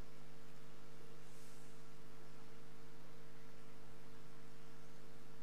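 Steady electrical mains hum, several fixed low tones over a light hiss, picked up through the altar microphone's sound system. A faint brief high hiss about a second and a half in.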